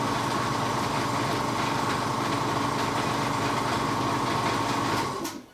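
Air compressor running steadily, a constant high tone over its motor noise, then stopping about five seconds in.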